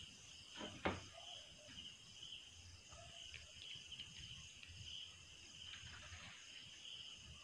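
Faint, steady high-pitched chirring of night insects, with a soft click about a second in.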